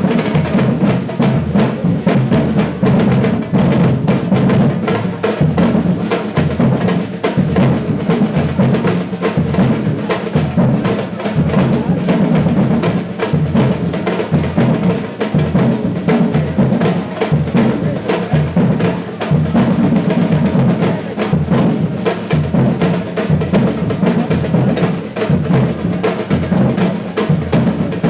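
Brazilian batucada percussion ensemble playing live: many drums struck together in a dense, steady groove with a strong, deep drum beat underneath.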